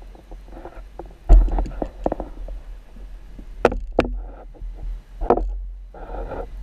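Underwater sound picked up by a GoPro Hero 4 in its waterproof housing: a low muffled rumble of water with handling knocks and sharp clicks on the housing, the loudest thump about a second in.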